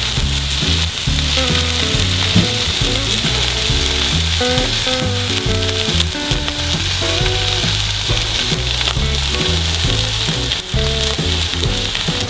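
Thick wagyu steak searing on a hot steel flat-top griddle, its fat sizzling in a steady hiss as the crust caramelises. Background music with a bass line plays under the sizzle.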